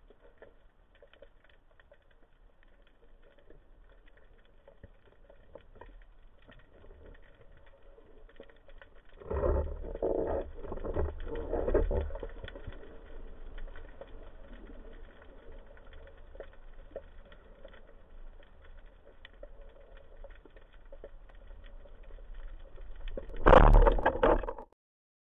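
Muffled underwater sound picked up by a speargun-mounted camera in its housing: a faint steady crackle, a louder stretch of muffled low rumbling about nine to twelve seconds in, and a short loud burst near the end that cuts off suddenly.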